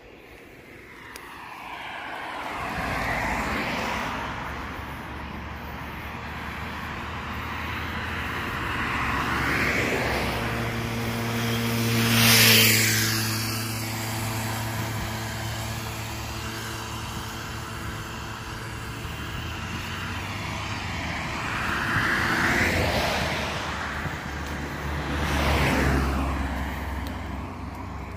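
Motor vehicles passing by on a road one after another, each swelling and fading away, about five in all. The loudest pass comes about twelve seconds in. A steady engine hum follows it for several seconds.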